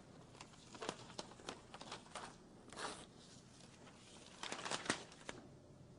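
Faint handling noises: scattered light clicks and a few short rustles, with a small cluster about three-quarters of the way through.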